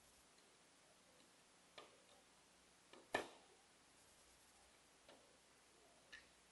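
A few small, sharp plastic clicks of Lego pieces being pressed together and picked up off the table, the loudest a double click about three seconds in, with near silence between.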